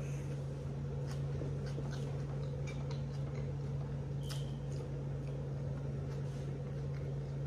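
A steady low hum in a small room, with faint scattered clicks and soft squishing of someone chewing a sandwich.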